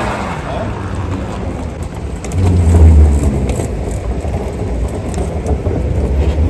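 Airport terminal and escalator noise: a steady low rumble with scattered light clicks, swelling louder about two and a half seconds in.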